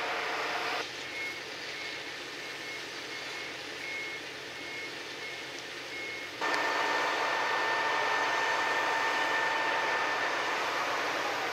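A vehicle's warning beeper sounds about twice a second at one steady high pitch over a steady machinery and harbour background. About six seconds in, the sound cuts abruptly to a louder, steady mechanical hum with a held whine.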